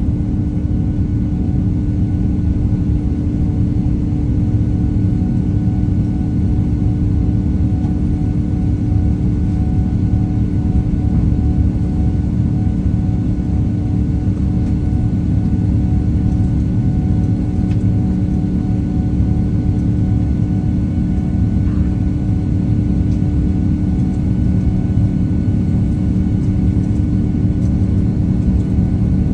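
Airbus A330-900neo's Rolls-Royce Trent 7000 turbofan engines heard from inside the cabin at climb power just after takeoff: a loud, steady rumble with several steady hums over it.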